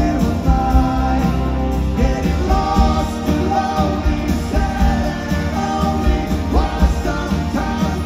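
Live rock band heard from the audience: a man singing lead over strummed acoustic guitar, electric guitar and drums.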